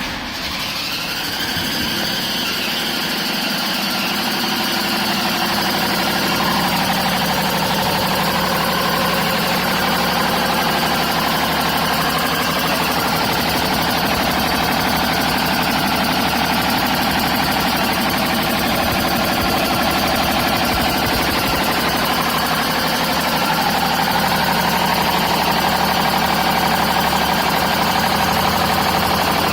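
BMW 530d's M57 straight-six diesel engine starting and settling to a steady idle, with a high, wavering screech over the engine note. The owner says the screech does not come from the belts.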